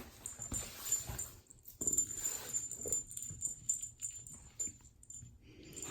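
Faint puppy noises with soft, irregular scuffling and rustling of small animals moving about.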